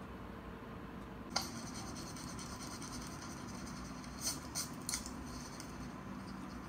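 Pen writing on paper: a soft scratching that begins with a click after about a second and a half, with a few louder strokes a few seconds later.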